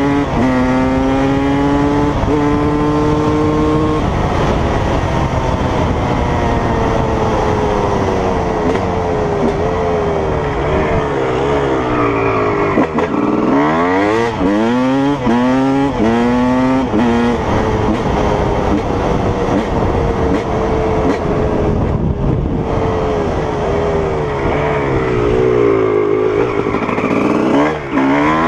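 Honda CR250 two-stroke single-cylinder dirt bike engine revving hard under load as it is ridden through the gears, its pitch rising and falling again and again. About halfway through comes a run of quick revs climbing and dropping in pitch.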